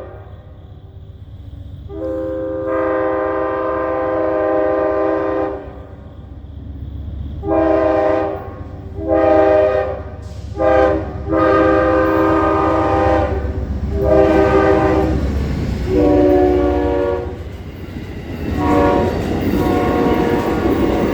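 Amtrak GE P42DC locomotive's multi-chime air horn sounding about nine blasts of uneven length, a long opening blast followed by a string of short and longer ones played as a horn show. The locomotive's rumble runs under the blasts, and near the end the noise of the train passing close by rises under the last horn notes.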